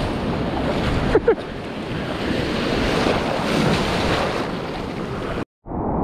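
Ocean surf rushing steadily with wind buffeting the microphone. About a second in there is a brief two-note blip, and near the end the sound cuts out for a moment and returns duller.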